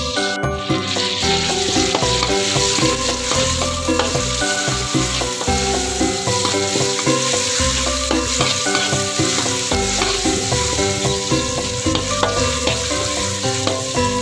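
Chopped chili and shallot sizzling in hot oil in a wok, stirred with a metal spatula that scrapes and taps the pan.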